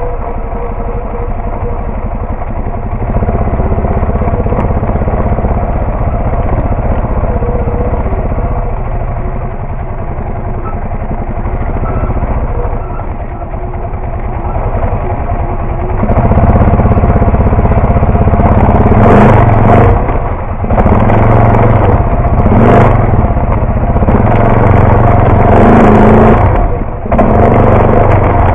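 ATV engine running as the machine works along a rough, rocky trail. It gets louder about halfway through as the engine pulls harder, and several brief clattering noises come near the end.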